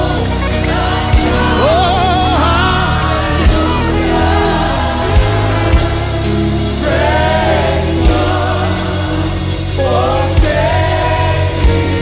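Live gospel worship song: slow, wavering sung melody lines over sustained keyboard chords, with drum-kit hits every second or two.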